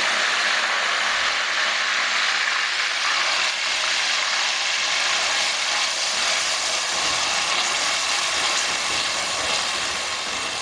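Ground onion paste frying in hot oil in an aluminium karahi: a steady sizzle, stirred with a wooden spatula through the second half, easing slightly near the end.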